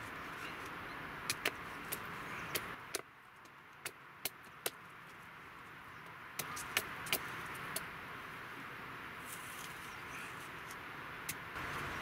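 Large knife chopping into a wooden stick on a log chopping block: about a dozen sharp, irregular knocks of blade on wood over a faint steady hiss.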